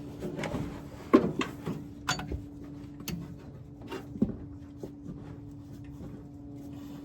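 Scattered clicks and knocks of a wrench working an oil pressure sensor into an engine block, the sharpest in the first few seconds. A steady low hum runs underneath.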